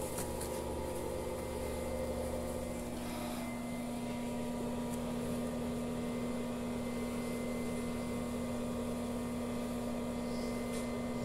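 Steady electrical hum made of a few held, unchanging tones, from a stick (arc) welding machine's transformer switched on but not welding.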